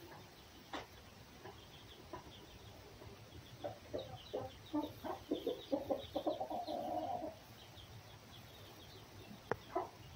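Short clucking animal calls coming quickly one after another for a few seconds, the last drawn out into a longer call, over a faint high chirping.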